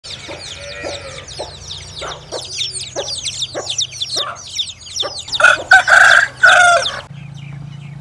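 Chicks peeping rapidly with short clucks among them, then a rooster crows loudly for about a second and a half, starting about five seconds in.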